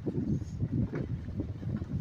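Vehicle driving over a bumpy unpaved road: a low engine-and-road rumble broken by uneven knocks and jolts.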